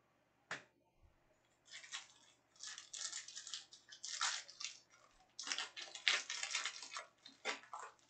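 Trading card packs and cards being handled: a single click about half a second in, then irregular crinkling and rustling of wrappers and cards.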